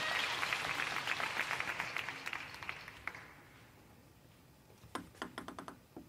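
Spectators clapping for a won table tennis point, dying away over about three seconds. Near the end comes a quick run of light ticks.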